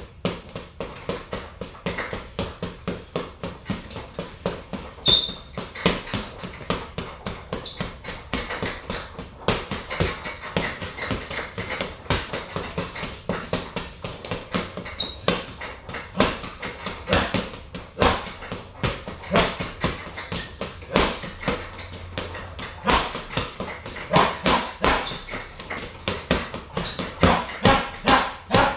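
Boxing gloves striking an Everlast heavy punching bag over and over in quick combinations, several sharp thuds a second, with denser flurries near the end.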